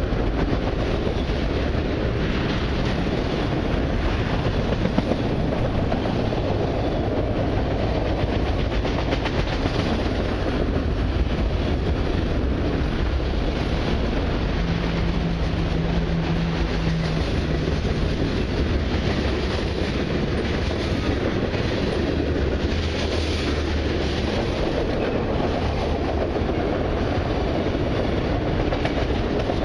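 Enclosed autorack cars of a long freight train rolling past close by: steel wheels running on the rails, a steady, unbroken rumble.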